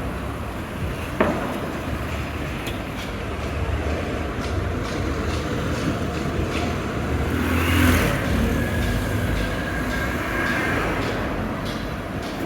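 Street traffic noise with a steady rumble. A vehicle passes, loudest about eight seconds in. A single sharp knock sounds about a second in.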